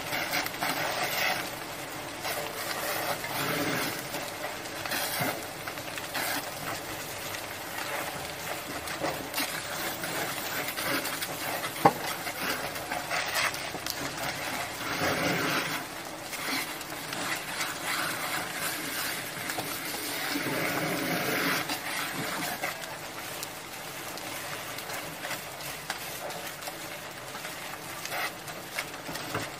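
Garage fire burning, with a firefighter's hose stream spraying water onto it: a steady rushing noise that swells and eases, broken by one sharp crack about twelve seconds in.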